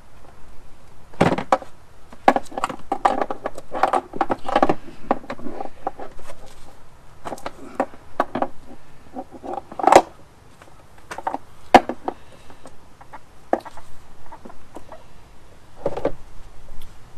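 Irregular clicks, knocks and rattles of hand-tool work on an Evinrude E-TEC outboard's air silencer as it is unscrewed and worked loose from the front of the powerhead. A sharp knock stands out about ten seconds in, and another just under two seconds later.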